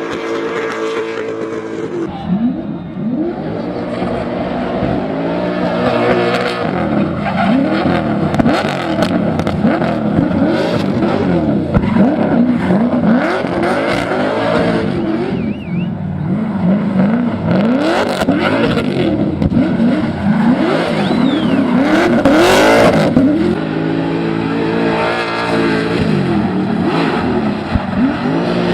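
Cammed 7.0-litre LS7 V8 in a Nissan 350Z, breathing through a 3.5-inch single exhaust, revving up and down over and over as it is driven hard. There are a few short stretches where the revs are held steady.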